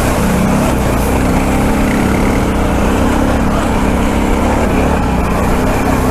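ATV engine running steadily under way on a rough, rocky trail, with a constant mechanical drone and the noise of the ride over it.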